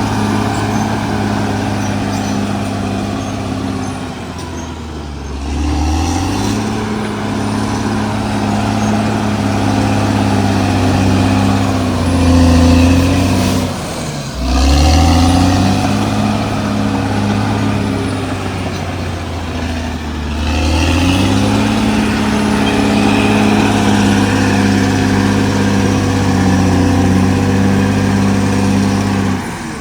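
CAT D6R XL bulldozer's diesel engine working steadily, its revs sagging and climbing back about three times, most sharply about halfway through.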